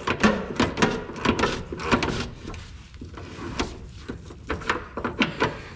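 Long-handled ratchet clicking in quick, uneven runs as it is swung back and forth on a rear subframe bolt of a 1984 Pontiac Fiero. The bolt is turning without backing out, which is taken for the bolt spinning in its bushing.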